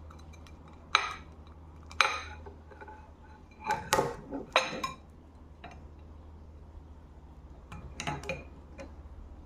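Scattered sharp clinks and taps of hard tableware, like cutlery on dishes or glass: single taps about one and two seconds in, a quick cluster around four seconds, and a pair near the end, over a steady low hum.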